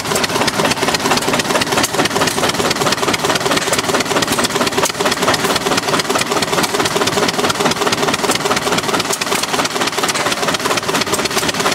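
Ford Model A four-cylinder flathead engine, built as an open cut-away display with its transmission attached, idling steadily with a rapid, even beat.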